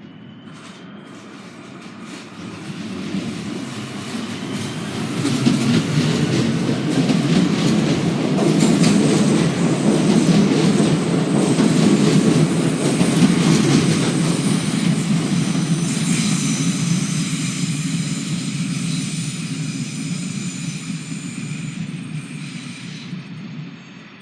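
Regional passenger train running past on the station tracks: a rumble that builds over about five seconds, stays loud through the middle and slowly fades near the end, with faint high-pitched tones from the wheels or traction gear above it.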